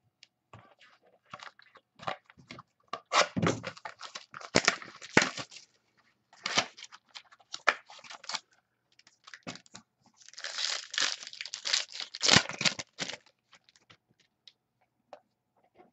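Trading card pack wrappers being torn open and crinkled by hand, in irregular bursts, loudest about three to five seconds in and again around ten to thirteen seconds.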